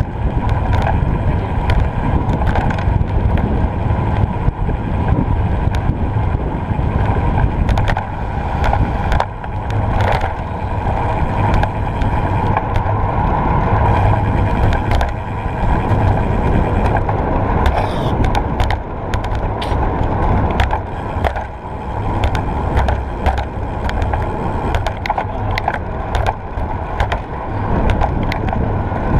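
Road bicycle riding over rough, cracked asphalt: a steady low rumble of tyre and road noise, dense with small clicks and rattles.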